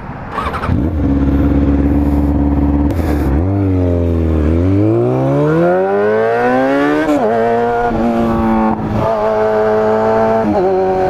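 2003 Kawasaki ZX-6R's inline-four engine accelerating along the road: after a steady note the revs climb for a few seconds, then drop sharply at upshifts about seven and about nine seconds in, and again near the end.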